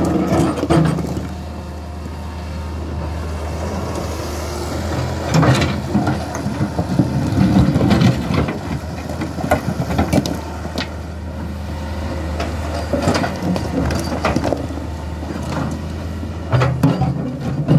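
Hitachi hydraulic excavator's diesel engine running steadily while its steel bucket pushes and sets loose rock, with repeated knocks and scraping of stone on stone and on the bucket, loudest in clusters through the middle and near the end.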